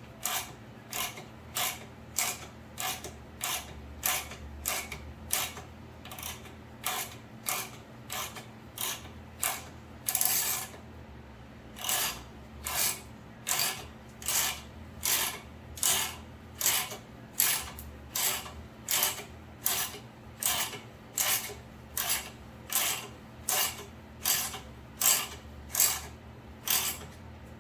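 Ratchet wrench clicking in steady, even strokes, about two clicks a second, as it turns a puller's screw to press a polyurethane bushing into place. A short rasping noise breaks in about ten seconds in.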